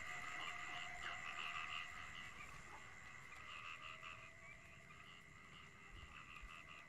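Faint night chorus of frogs croaking in repeating calls over a steady high trill, growing fainter toward the end.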